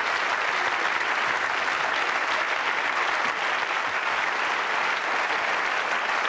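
Studio audience applauding, steady and sustained clapping from a large crowd.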